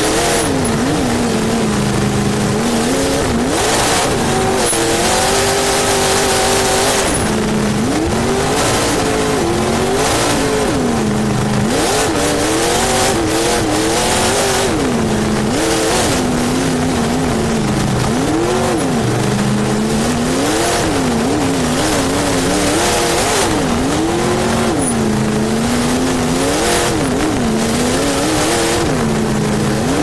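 Competition car's engine heard from inside the cockpit, revving up and dropping back again and again every second or two as the driver works the throttle, with frequent short bursts of hiss.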